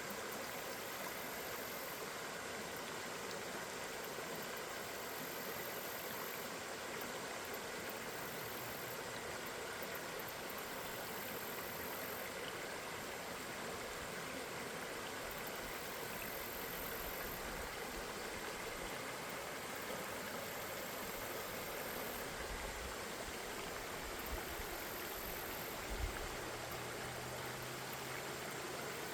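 River water flowing in a steady, even rush, with a few low thumps near the end.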